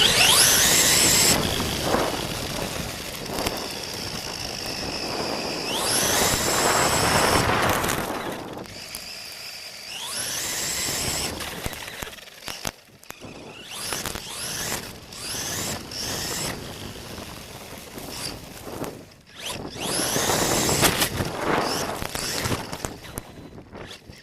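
WLtoys 124017 RC car's electric motor whining as it accelerates in several bursts, each rising steeply in pitch, with quieter coasting between runs. There are a few sharp knocks in the middle.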